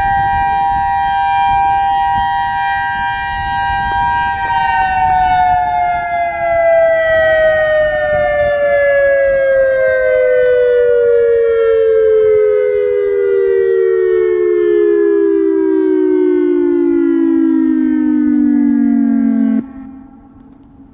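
Federal Signal EOWS-612 electronic warning siren sounding its alert test signal: two steady tones held together as a chord, loud. About four seconds in, both tones start a slow, even fall in pitch, and the sound cuts off abruptly near the end.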